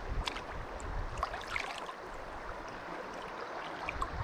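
River water flowing steadily, with a few light splashes and trickles close by in the first couple of seconds.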